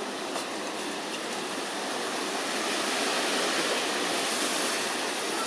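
Steady rushing background noise, growing a little louder about halfway through.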